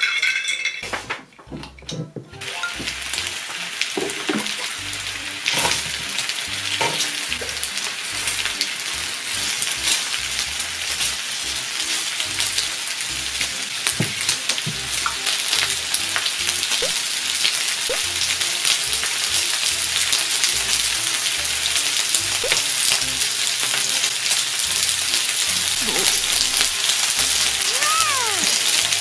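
Pork belly sizzling on a grill plate. The hiss starts about two seconds in, is full of scattered crackles, and grows gradually louder.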